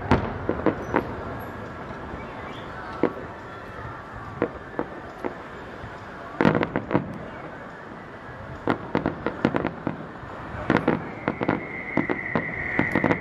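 Fireworks display: aerial shells bursting with sharp bangs at irregular intervals, coming thick and fast in the last few seconds. A steady high whistle comes in near the end.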